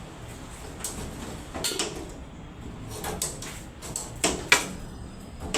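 Scattered short knocks and clatter, about half a dozen irregular hits, the loudest a sharp knock about four and a half seconds in.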